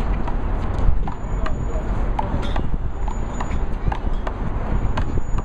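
One-wall handball rally: a string of sharp slaps as the small rubber ball is struck by hand and smacks off the wall, mixed with players' footsteps on the asphalt court, over a steady low rumble.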